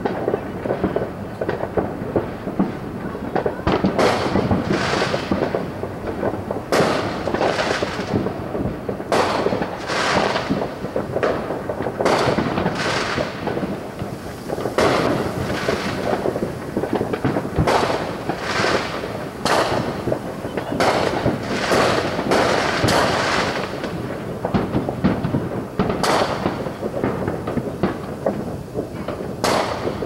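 Distant fireworks going off in a steady barrage: sharp bangs and pops, roughly one a second, each trailing off in a fading echo, over a continuous background of further popping.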